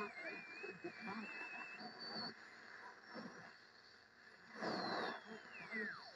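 AM radio tuned between stations: static and crackle with a wavering heterodyne whistle, a burst of static about four and a half seconds in, and a whistle sliding steeply down in pitch near the end as the tuning moves.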